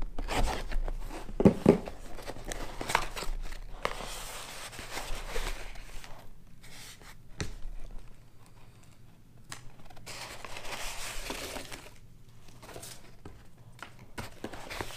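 Cardboard shipping box being opened by hand: paper and cardboard tearing and crinkling in several stretches, with a few sharp knocks of the box handled against the table, the loudest about a second and a half in.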